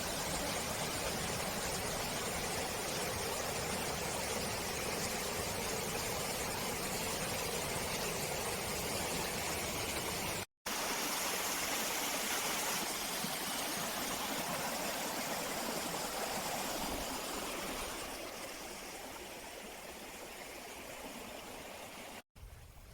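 Steady rush of flowing stream water. It drops out for an instant about ten seconds in, then grows quieter over the last few seconds.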